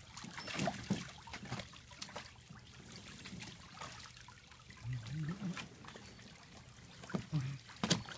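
Water splashing and sloshing in a plastic kiddie pool as two young malamute-wolf hybrid dogs move about in it, over a steady trickle of water. Short sharp splashes come throughout, the loudest near the end.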